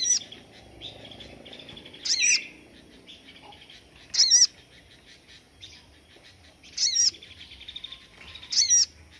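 A sogon songbird repeating its sharp 'tembakan' (shot) phrase: five loud, quickly warbling high bursts about two seconds apart, with softer chattering trills in between.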